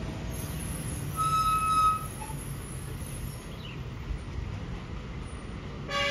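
Loaded lorries' diesel engines running with a steady low rumble. About a second in, a loud shrill tone sounds for under a second, and a lower horn starts to blare right at the end.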